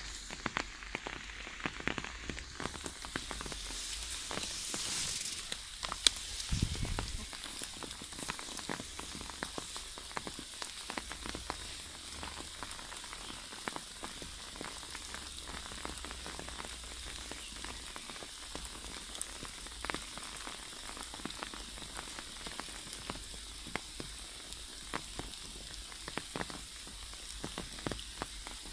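Light rain pattering steadily on grass and leaves, with many scattered sharp ticks. A louder rustle and a knock come about six seconds in.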